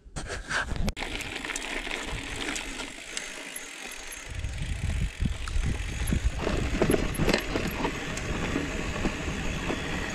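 Mountain bike rolling over bumpy grass pasture: a steady rush of tyres and air, with the bike's drivetrain and frame clattering over the rough ground. It is louder and rougher in the second half.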